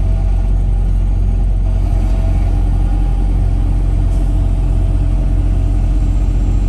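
Semi truck's diesel engine running with a steady low rumble, heard from inside the cab.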